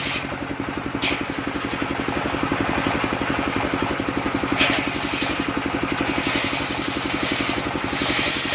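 Engine of a portable circular sawmill running steadily with a fast, even pulse, while the saw cuts sengon wood with a hiss that rises and falls; two brief sharp sounds stand out, about a second in and near the middle.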